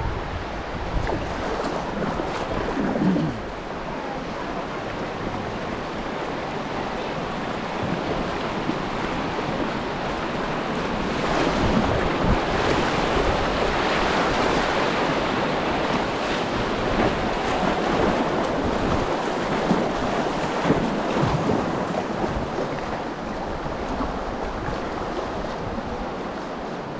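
Moving creek water rushing around a kayak on a flowing desert river. The rush swells louder about a third of the way in and eases again near the end.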